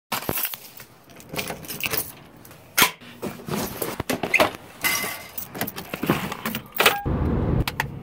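Keys jangling and small objects clattering as a hand rummages through a box, then clicks and knocks of a key working a door lock. About seven seconds in it switches abruptly to steady low road noise from inside a moving car.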